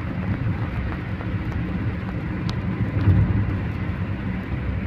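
Car interior noise while driving: a steady low rumble of engine and tyres on the road, swelling slightly about three seconds in, with a few faint ticks.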